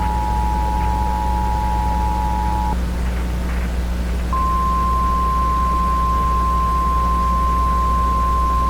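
Emergency Alert System attention signal: a steady two-note alarm tone that cuts off about three seconds in. After a short pause, a single slightly higher steady alert tone, like the weather-radio warning tone, starts and holds. A steady low drone runs underneath.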